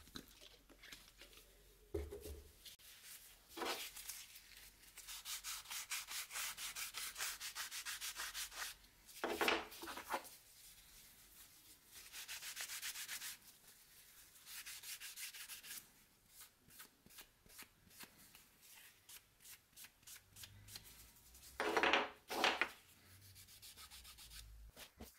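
A white cloth rubbed quickly back and forth over wooden knife handle scales and the steel tang, wiping them clean in runs of short even strokes. A few louder knocks come in between as the pieces are handled.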